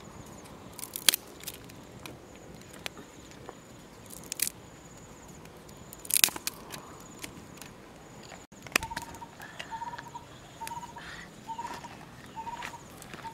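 Dry wooden sticks snapped by hand, a few sharp cracks over the first six seconds. Later a short chirp repeats steadily, about one and a half times a second, over a faint high insect drone.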